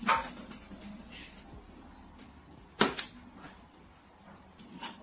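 Plastic water bottle knocking against a shelf: a sharp knock just after the start and two more close together about three seconds in, over quiet room sound.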